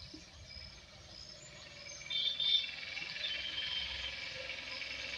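Faint outdoor ambience of birds chirping, with a louder call about two seconds in, then a steady high-pitched insect chorus.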